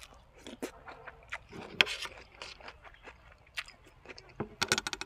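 Close-up eating sounds: a person chewing and biting food, with wet mouth clicks and crunches, then a quick run of sharp clicks near the end.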